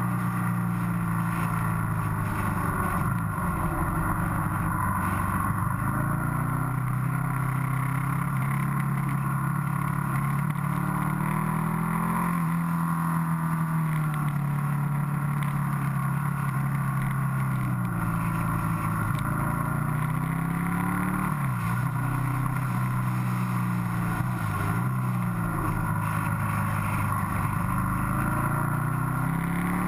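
Motorcycle engine heard from a camera mounted on the bike while riding, its note rising and falling several times with the throttle through the bends, over a steady rush of wind and road noise.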